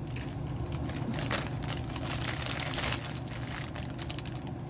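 A plastic popcorn bag crinkling as it is handled and reached into, busiest for the first three seconds and then easing off. A steady low hum runs underneath.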